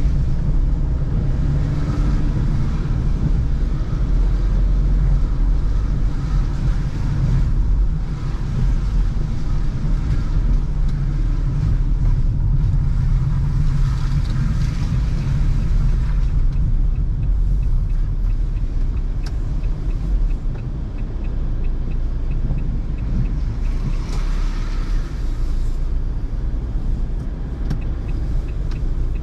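A car driving on wet city streets, heard from inside the cabin: a steady low engine and road rumble with a hiss from the tyres that swells and fades now and then. A faint, even ticking runs through the second half.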